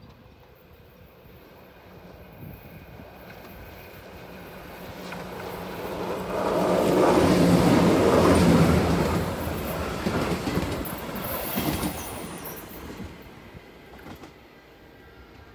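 TRAVYS regional electric train passing close by on a curve: the rolling noise of its wheels on the rails grows, peaks about halfway through and fades away, with a brief high-pitched wheel squeal near the end of the pass.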